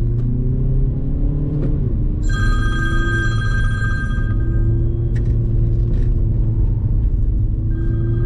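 Steady low rumble of a Volkswagen Golf 7.5 driving on the road, under Turkish folk music. The music holds a bright, high note from about two seconds in for roughly two seconds, and again near the end.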